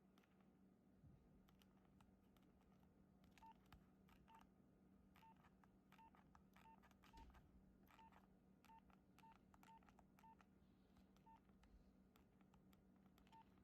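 Faint short keypad beeps from a Nokia 6016i, about a dozen at irregular intervals, each with the light click of a key being pressed, over a low steady hum.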